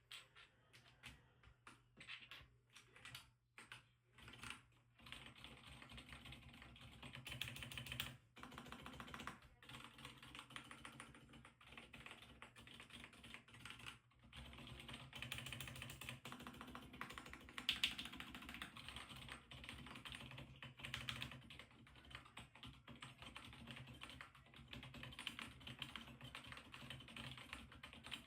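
Keychron mechanical keyboard with Haimu silent Pink Salt switches being typed on: muted, soft keystrokes, a few separate presses at first, then fast continuous typing with short pauses.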